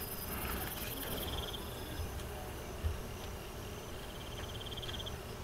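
Insects chirping in the background in two short pulsed trills, one about half a second in and one near the end, over a low steady hiss. A soft knock comes just before three seconds in.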